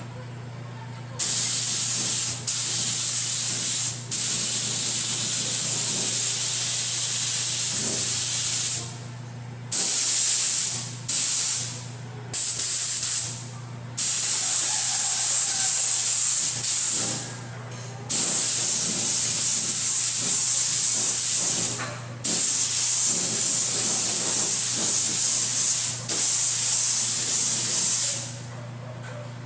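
Gravity-feed paint spray gun spraying white paint in bursts of one to four seconds: a loud hiss that stops and starts again about ten times as the trigger is let go and pulled. A steady low hum runs underneath.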